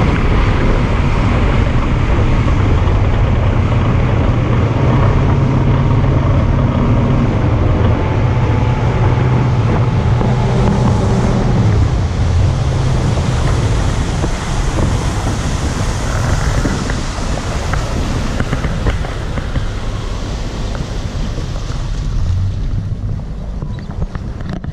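Bay boat's motor running at full throttle, a steady engine hum under heavy wind buffeting on the microphone.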